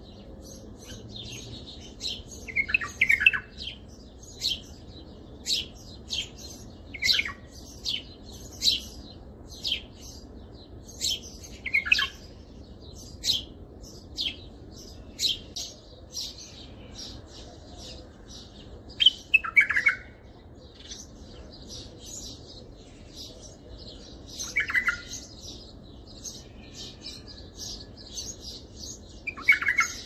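Bulbul song in the Baghdadi style, used as tutor song for teaching young bulbuls. It runs as a quick string of short, high chirps, about two a second, broken every few seconds by a louder falling phrase.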